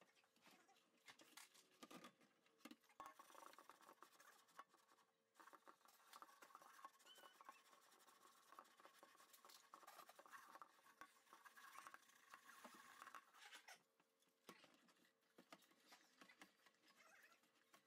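Faint scrubbing of a cooking pot with a soapy sponge at a stainless steel sink: scratchy rubbing with many small clicks and knocks, easing off about fourteen seconds in, then starting again.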